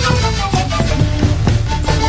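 Instrumental passage of a song, with several instruments playing notes over a steady beat.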